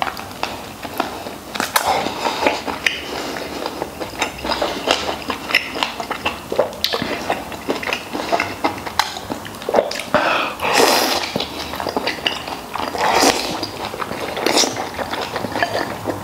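Close-miked eating of stewed pork knuckle: chewing, biting and wet lip-smacking on the soft, gelatinous skin and meat, in irregular bursts.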